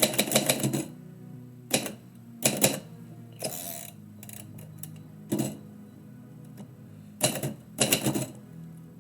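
Typewriter keys struck in short, irregular bursts of clacks with pauses between them. Quiet background music plays underneath.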